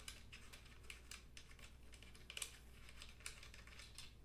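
Faint, irregular small clicks and ticks from a screw-on muzzle piece being unscrewed by hand from the threaded barrel of a Hi-Point 995TS 9mm carbine. Two of the clicks, past the middle, are a little louder.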